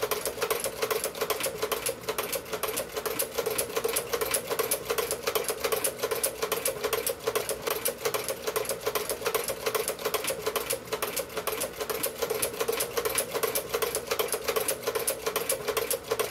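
1908 Singer 29-4 treadle sewing machine stitching through leather, a fast, even clicking of the needle mechanism that keeps a steady pace throughout.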